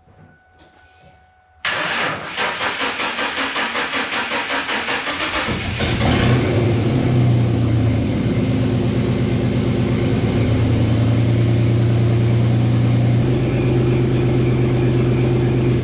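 1999 Ford Mustang's 3.8-litre V6 being cold-started after sitting a month: the starter cranks it over with an even pulsing for about four seconds, then it catches and settles into a loud, steady idle. The freshly welded exhaust is only half bolted at the flange, which is why it sounds like crap.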